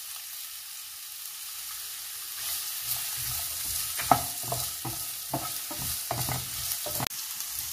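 Sliced onions sizzling in hot olive oil in a nonstick pan. From about three seconds in, a wooden spatula stirs them with irregular scrapes and knocks against the pan. One sharp knock about four seconds in is the loudest sound.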